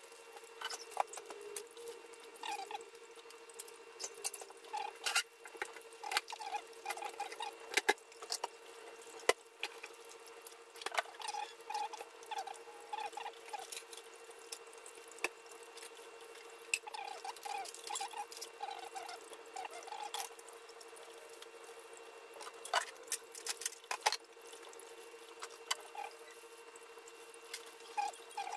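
Kitchen faucet water running and splashing into a bowl while a live crab is scrubbed under it, with many short scratchy scrubbing sounds and sharp clicks against the shell. A steady hum runs underneath.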